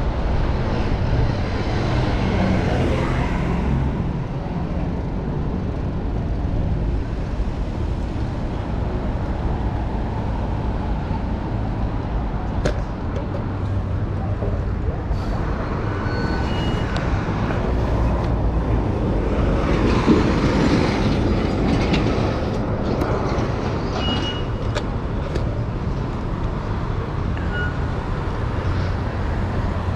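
City street traffic and road noise heard from a moving bicycle: a steady rushing haze that swells a little about two-thirds of the way through, with a few faint clicks and brief high chirps.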